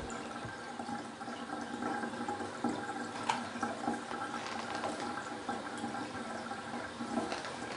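Water running steadily, as from a tap into a darkroom sink, with a few small knocks and clicks, the clearest about three seconds in.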